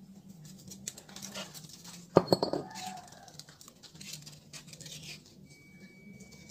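Steel CVT clutch bell set down on a concrete floor about two seconds in: one sharp metallic clang with a short ringing tail. Lighter knocks and rustles of parts and sandpaper being handled come before and after.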